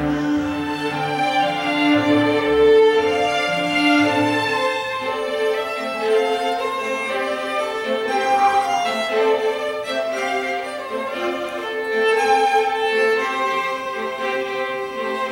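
String orchestra of violins, violas, cellos and double bass playing classical music live, with held bowed notes under a moving melody. The low bass notes fall away after about five seconds.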